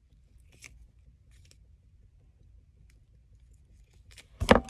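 Faint scattered clicks and scraping of florist wire being twisted around a pen to curl the stem. A single loud knock, most likely a bump against the microphone or the table, comes near the end.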